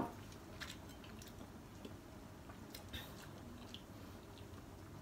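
A person chewing a slice of lemon with the mouth closed: faint, scattered wet clicks and smacks.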